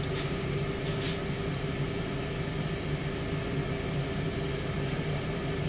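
Tower air fryer oven running mid-cook: its fan gives a steady hum with a low drone under a faint hiss, and two brief soft rustles come in the first second.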